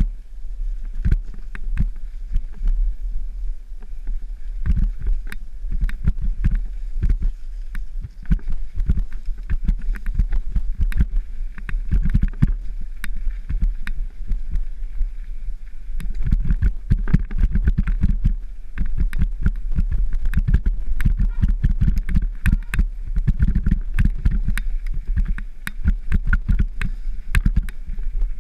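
Downhill mountain bike descending a rough dirt trail, heard from the rider's helmet: a constant dense clatter of knocks and rattles as the bike and tyres hit roots and bumps, over a steady low rumble of wind buffeting the microphone.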